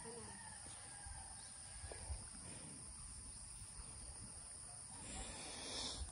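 Faint outdoor insect chorus, a steady high-pitched buzz, with a brief soft rustle near the end.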